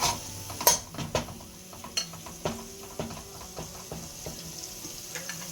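Green seasoning frying in a pan with a steady sizzle, while a utensil stirs it, knocking and scraping against the pan in a string of clicks, the sharpest about a second in.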